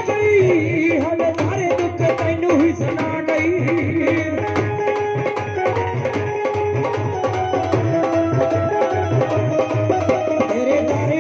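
Live Punjabi devotional folk music: dholak and dhol playing a steady rhythm under a gliding keyboard melody.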